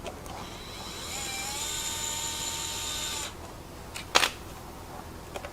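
A small electric motor whirs steadily for about three seconds, its pitch rising slightly as it gets going, then cuts off. A couple of sharp clicks follow about a second later.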